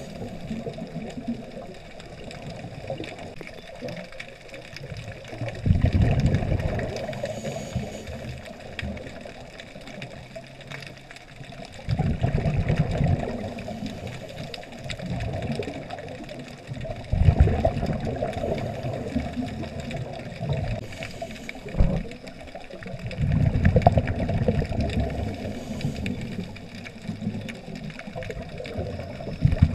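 Scuba diver's regulator breathing heard underwater: a low gush of exhaled bubbles about every five to six seconds, with quieter stretches between breaths.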